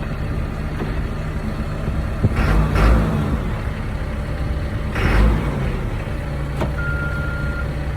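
Caterpillar backhoe's diesel engine running, swelling louder twice, then its reversing alarm begins to beep near the end as reverse is selected. The backhoe has a gear-selection fault: it runs but won't move.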